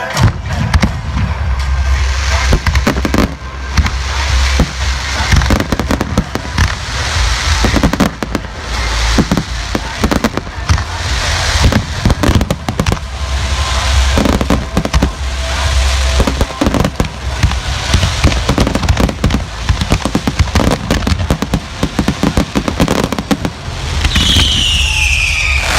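A fireworks display at its height: shells and firecrackers going off in a rapid, near-continuous barrage of sharp bangs over a deep rumbling boom. A falling whistle sounds near the end.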